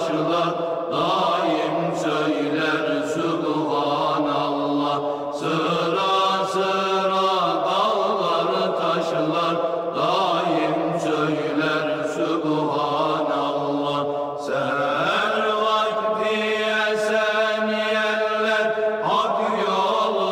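Unaccompanied Turkish devotional chant (ilahi): voices sing without instruments, a steady low note held under a melody that moves to a new pitch every few seconds.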